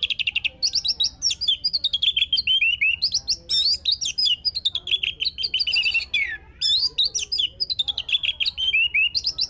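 Male orange-headed thrush singing a rapid, varied song of high whistles, fast trills and chattering notes, with a short pause after a falling note about six seconds in. The song stops abruptly at the end.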